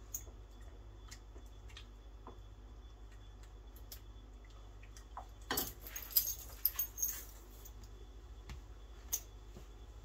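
Steel Peerless handcuffs and their linking chain clinking, with a cluster of sharp metallic clinks about five and a half to seven seconds in and a few scattered clicks elsewhere, over a low steady hum.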